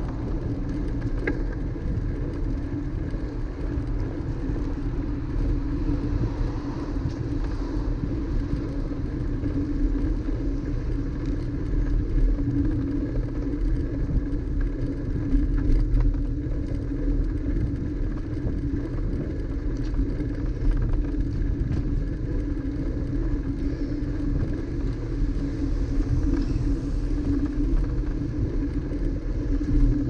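Rolling bicycle ride heard through a GoPro microphone: steady wind rumble on the mic with tyre and road noise, a steady low hum underneath, and a few light clicks and rattles.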